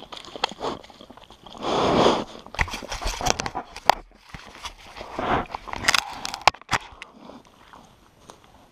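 Brown bear cubs pawing and nosing at a tree-mounted camera box close up: claw scrapes, knocks and clicks on the casing, with a loud rush of noise about two seconds in. It thins out near the end.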